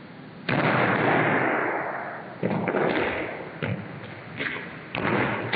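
Bare feet stomping onto the practice mat as sumo wrestlers do shiko leg-stomps: a series of uneven thuds, the loudest about half a second in, with several more from about two and a half seconds on.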